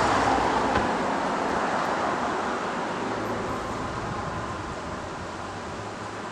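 Rushing road-traffic noise, loudest at the start and slowly fading.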